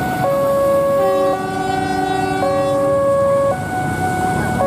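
Railway level-crossing warning alarm sounding, two steady tones alternating high and low about once a second. Between about one and three seconds in, a further set of lower tones sounds over it.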